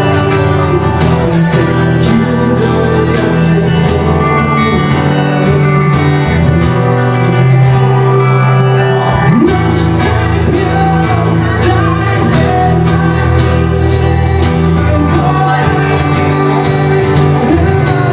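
Live acoustic rock song: strummed acoustic guitar in a steady rhythm under strong low notes, with a voice singing.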